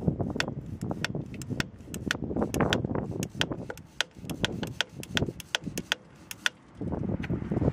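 Audi A4 2.5 TDI V6 diesel engine running, heard close at the accessory belt drive and its tensioner pulley, with a quick, irregular train of sharp clicks, about three or four a second.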